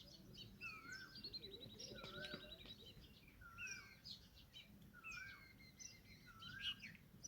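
Faint chorus of several birds calling: a short wavy whistled note repeating about once a second, a rapid high trill about a second in that lasts a second and a half, and several falling whistled sweeps.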